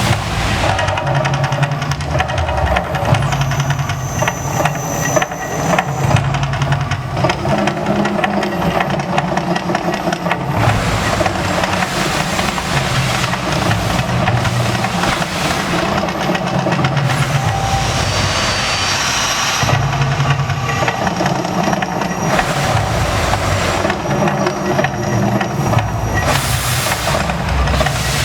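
The Mirage volcano eruption show: a loud, continuous deep rumble of shifting low tones, with hissing rushes about ten seconds in and again near the end.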